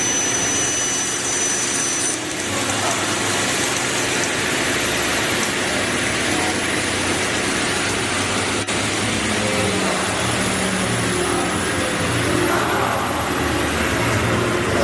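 Sliding table panel saw running: a steady whir of the motor and circular saw blade, with one sharp click about nine seconds in.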